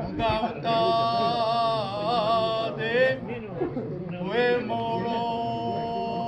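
Kiyari, the Japanese festival work chant: a man's voice singing long drawn-out held notes with wavering ornaments, two phrases joined by a rising slide.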